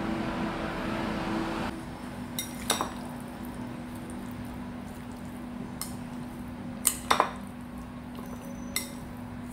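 Chopsticks clinking against a ceramic bowl as raw pork cubes are stirred with salt and pepper: scattered sharp clinks, three close together about seven seconds in. A low steady hum runs underneath.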